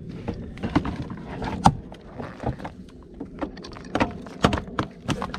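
Plastic door-sill scuff plate trim of a Porsche Panamera being levered off with a metal pry tool: irregular sharp clicks and knocks of plastic and metal, the loudest about a second and a half in and again near the end.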